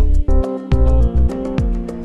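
Background music with a steady drum beat under held instrument tones.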